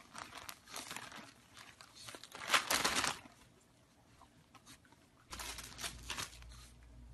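Gift wrapping paper crinkling and tearing in irregular bursts as pugs nose and pull at a wrapped present, loudest about two and a half seconds in.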